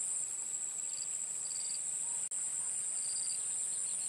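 Insects shrilling in a steady, high-pitched chorus, with short, lower-pitched buzzing notes coming in every second or so.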